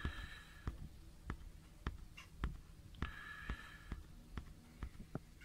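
Faint handling noise as an eyepiece is turned in the hand: about ten light clicks, irregularly spaced, with two short hissy rustles, one at the start and one about three seconds in.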